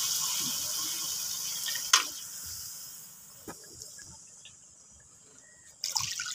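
Hilsa fish pieces sizzling in oil and masala in a pan, the sizzle fading away over the first three seconds. A steel spatula clinks against the pan about two seconds in and again a little later, and a brief rush of noise comes near the end.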